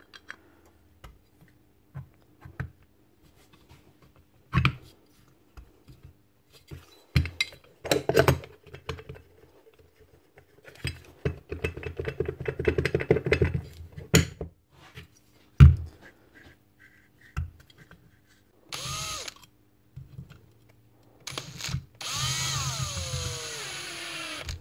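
Metal parts of an angle grinder's gear head clinking and knocking as they are handled, with a few seconds of rapid rattling clicks in the middle. Near the end a Bosch cordless drill-driver whirs briefly, then runs for a couple of seconds driving a screw into the grinder's aluminium gear housing, its pitch falling.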